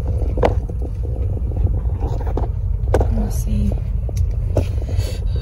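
Steady low rumble of a car's engine and tyres heard from inside the cabin as it drives slowly, with a few light knocks.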